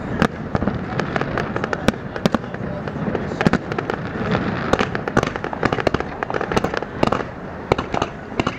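Fireworks display going off in rapid succession: many overlapping bangs and crackles over a continuous rumble of distant explosions.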